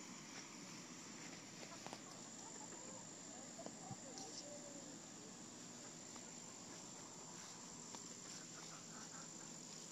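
Faint, steady, high-pitched insect trill, like crickets, with a few faint soft chirps about three to four seconds in.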